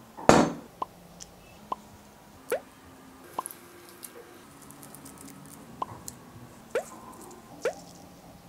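A loud wet splat as yogurt drops into a glass mixing bowl, then about seven short plops with a rising pitch, roughly one a second, as lemon juice and spices go into the bowl.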